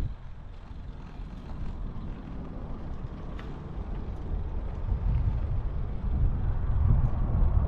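Wind buffeting the microphone of a camera riding along on a bicycle, heard as a steady low rumble that grows a little louder in the second half.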